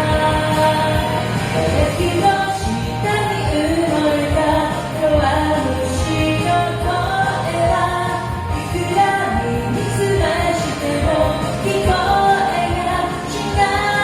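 Pop song with a singer's voice carrying the melody over a full instrumental backing.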